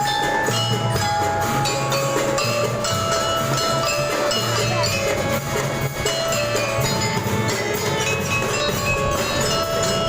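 A school gita suara drum band playing a tune: bell lyres carry a ringing melody over a steady beat of drums.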